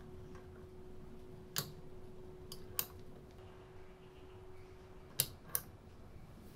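Push-button light switch on a wall-mounted cabin reading light clicking as it is pressed: five sharp clicks, a single one about one and a half seconds in, two close together near three seconds, and a louder pair near the end, over a steady low hum.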